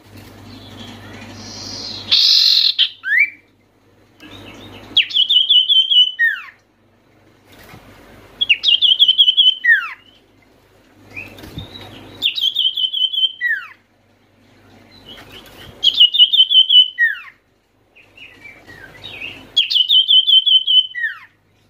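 Common iora (sirtu, cipoh) singing: about six repeated phrases, each a rapid trill of chirps followed by a falling whistled note, coming every three to four seconds.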